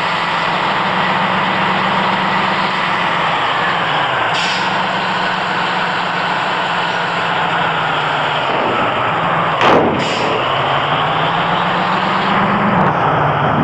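A motor vehicle's engine running steadily, its pitch dipping and then rising again late on, with one short sharp sound about ten seconds in.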